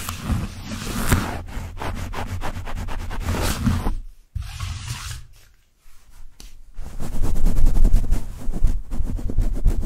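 Sticky lint roller rolled and pressed against a foam-covered microphone, with rapid crackling as the tape grips and lets go. After a short quiet gap about halfway through, a fuzzy paint-roller cover is rubbed across the bare microphone grille, louder, with dense scratchy rubbing.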